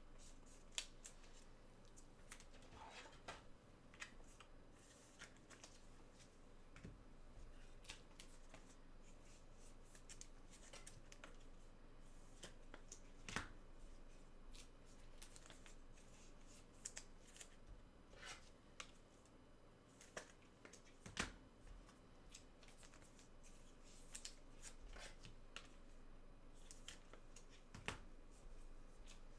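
Trading cards being handled and sorted, with faint sliding and rustling and scattered light clicks, and a few sharper taps about a second in, about halfway through, and near the end.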